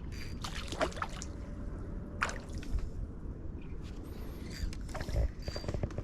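Small boat on the water: a steady low rumble with a few short knocks against the hull.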